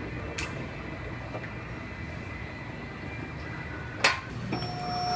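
Steady body-shop background noise with a sharp metallic clank about four seconds in as a removed car body part is set down on a metal parts stand, followed near the end by a short steady tone.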